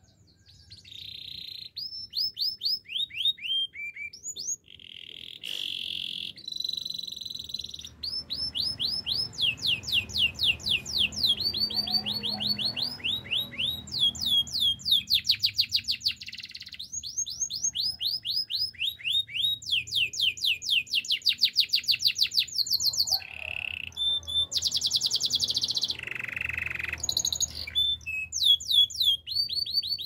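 Domestic canary singing a long continuous song: rapid trills of repeated down-slurred notes, the phrase changing every second or two, with a few rolled, buzzy phrases in between.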